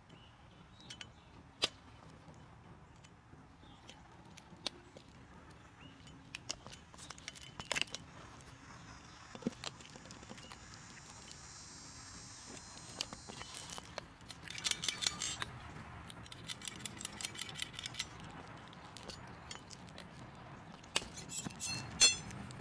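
Metal-on-metal clicking and clinking as aluminium slingshot-rifle parts are screwed together with a folding hex key and steel rods are fitted, with a quick run of rattling ticks past the middle and a sharp metal click near the end.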